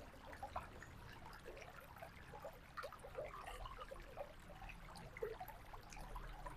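Faint river water running, a dense, irregular patter of small splashes and gurgles.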